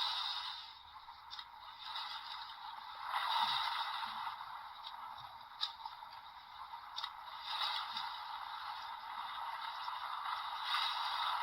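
Premium DX Boost Mark IX Raise Buckle toy playing its Mark III mode sound effects through its small built-in speaker: a rushing noise that swells and fades several times, with a few short clicks between.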